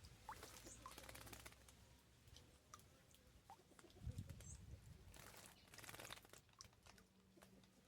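Small birds bathing: two bursts of rapid wing-fluttering and splashing in shallow water, one near the start and one about five seconds in, with a few faint chirps.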